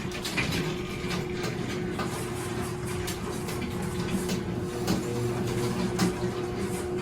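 Craftsman garage door opener running as it lowers the door: a steady motor hum with a rumble and rattle, and a few sharp clicks along the way.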